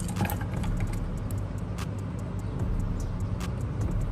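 Steady low background rumble, with a few faint ticks over it.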